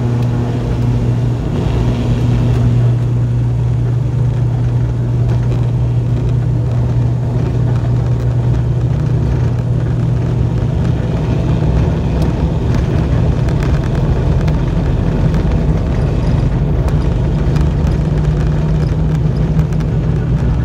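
ATR 42-600's Pratt & Whitney PW127 turboprop engines and six-bladed propellers at takeoff power during the takeoff roll, heard from inside the cabin: a loud, steady propeller drone with a low rumble beneath.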